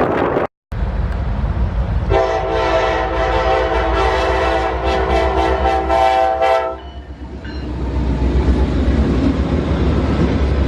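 Lead diesel locomotive's multi-note air horn sounding one long blast of about four and a half seconds over the low rumble of the train. When the horn stops, the rushing rail noise of the passing train builds up.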